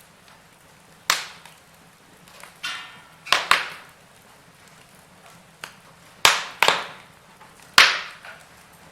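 Wood fire crackling: several sharp pops at irregular intervals, some in quick pairs, each dying away quickly over a faint hiss.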